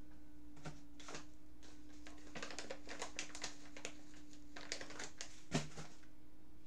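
Close handling noise: an irregular run of soft clicks and rustles, with one sharper knock near the end, over a steady low hum.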